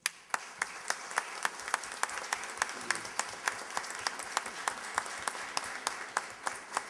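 Audience applauding after a speech, starting suddenly, with one nearby pair of hands clapping sharply at about three claps a second over the crowd's clapping.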